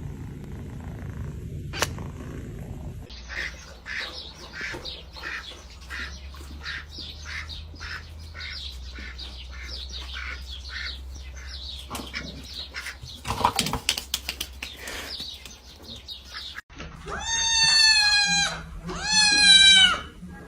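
A cat meowing loudly twice near the end, each meow long and falling in pitch. Before that comes a run of short high chirps, about two a second, with a brief clatter of knocks partway through. A low rumble fills the first few seconds.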